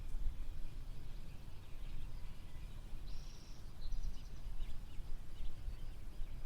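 Daytime countryside field ambience: scattered bird calls and chirps over a steady low rumble, with one clearer held call about halfway through followed by a run of short chirps.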